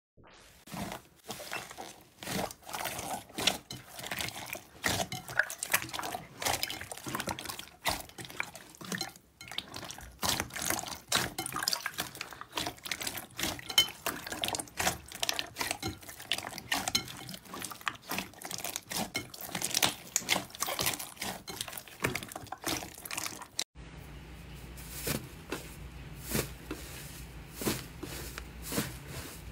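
Slime being squeezed and kneaded by hand in a bowl, giving a dense, irregular run of wet squelches, pops and crackles. A little after the middle the sound changes to softer squishing over a steady low hum.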